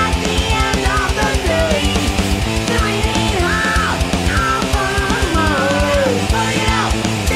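Heavy rock band playing: distorted guitars and bass over fast, driving kick-drum strokes, with a lead line bending up and down in pitch on top.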